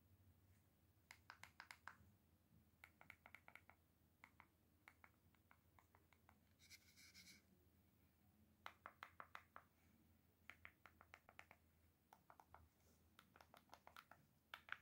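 Keys of a Rii mini X1 mini wireless keyboard being pressed in quick runs of faint clicks, several bursts of key presses one after another. A short scratchy rub is heard about seven seconds in.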